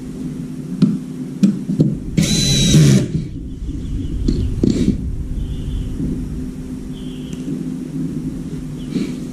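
Cordless drill running once for under a second, about two seconds in, while a front-loading washing machine door is taken apart; scattered clicks and knocks of the plastic door parts being handled come before and after it. A steady low hum sits underneath.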